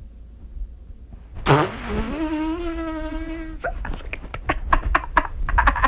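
A person's voice making one long, drawn-out wordless sound starting about a second and a half in, then a quick run of short breathy bursts like stifled laughter.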